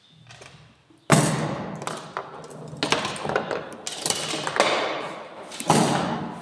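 Foosball game in play: the hard ball is struck by the rod figures and cracks against the table's wooden sides, with the rods clacking. The result is a string of sharp knocks, the loudest about a second in.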